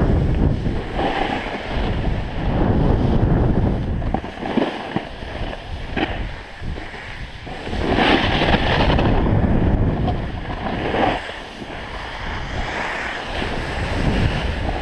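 Wind buffeting an action camera's microphone, mixed with a snowboard sliding and scraping over packed snow on the way downhill. The noise swells and eases every second or two.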